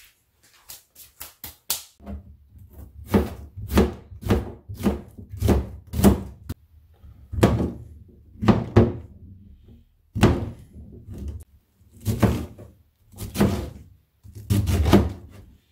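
Kitchen knife chopping oyster and enoki mushrooms on a plastic cutting board: a run of separate knife strikes with a dull thunk, one or two a second, after a few light quick clicks in the first two seconds.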